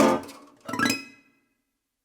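Resonator guitar playing its closing: two sharp strummed chords, the first at the start and the second just under a second later, each quickly damped, then silence as the song ends.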